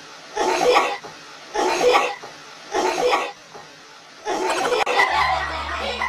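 Three short bursts of stifled laughter about a second apart, then laughter running on as background music comes in about five seconds in.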